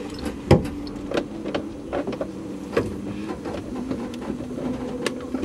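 A steady mechanical hum from a stationary rally car, with scattered sharp clicks and knocks.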